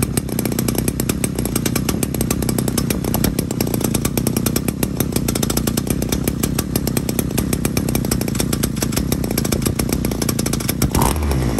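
Small two-stroke petrol engine of a handheld garden tool running steadily, a rapid, even firing note throughout, with a brief change in note near the end.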